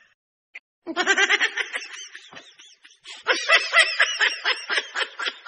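Laughter sound effect: after about a second of silence a bout of rapid, high-pitched giggling begins, pauses briefly around the three-second mark, then starts up again.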